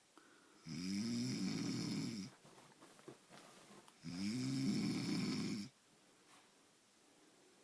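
A man snoring in his sleep: two snores, each about a second and a half long, a little over three seconds apart, with quiet between them.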